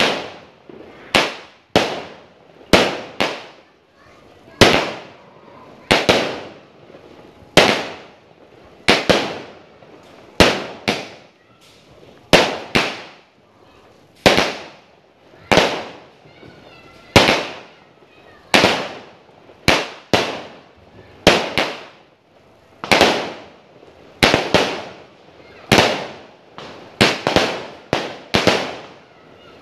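A Thai fireworks cake, a 36-shot repeater, firing one sharp bang after another about once a second, each fading quickly. The shots come closer together near the end.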